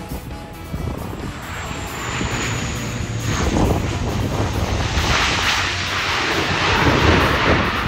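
Jet airliner passing close overhead. A high engine whine falls slightly in pitch during the first few seconds while the roar builds, and the roar is loudest about two-thirds of the way through.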